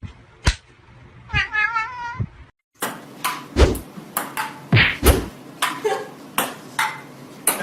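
A domestic cat meows once, a wavering call. After a short break comes a rapid series of sharp knocks and taps, several with a brief ringing ping.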